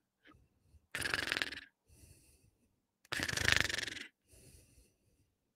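Mock snoring: two loud snoring breaths about two seconds apart, each followed by a softer breath out.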